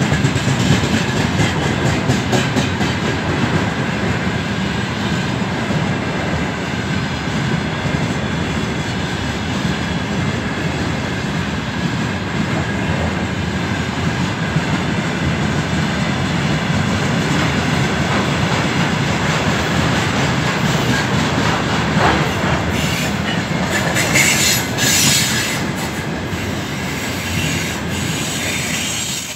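Freight train of container flatcars rolling past at close range: a steady rumble of steel wheels on the rails with clickety-clack over the rail joints. A few high-pitched wheel squeals come in about three-quarters of the way through.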